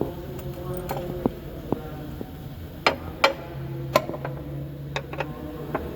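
Hand tools clinking and tapping against metal parts: about a dozen sharp, irregular clicks, some briefly ringing, over a steady low hum.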